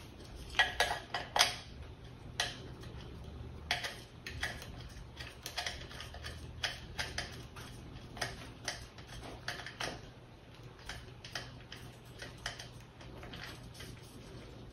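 Irregular light clicks and taps of small metal furniture hardware being handled, most likely caster wheels being screwed on by hand and tightened with a flat wrench. A cluster of sharper clicks comes about a second in, then scattered clicks at an uneven pace.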